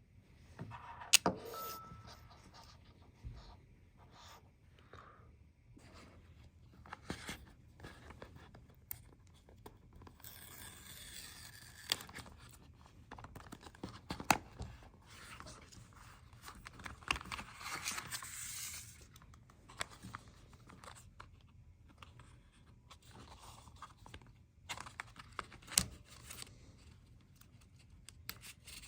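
Cardboard and paper packaging being handled and opened: scraping, rustling and tearing, with scattered clicks and taps and two longer spells of rustling.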